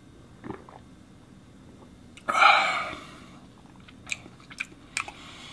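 Mouth sounds of a man tasting a sip of beer: a loud breath out a little over two seconds in, then a few quick lip smacks and tongue clicks near the end.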